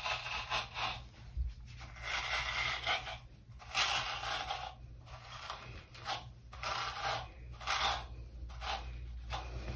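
Tangle Teezer detangling brush dragged through gel-coated hair in repeated scratchy strokes, about one a second.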